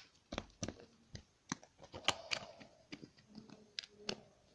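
Slime being squished and handled by hand: a faint, irregular string of short clicks and squelches.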